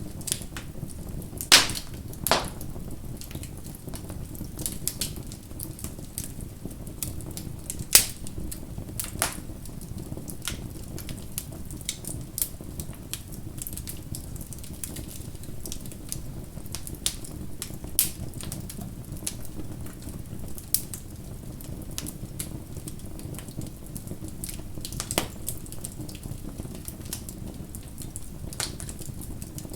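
Wood fire crackling: a steady low rush of burning with frequent sharp pops and snaps, the loudest about a second and a half in, at about 8 s and at about 18 s.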